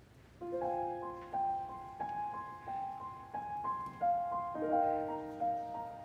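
Grand piano playing a solo introduction: single notes and chords struck in a flowing pattern, sustaining and overlapping, beginning about half a second in over a faint hall hum.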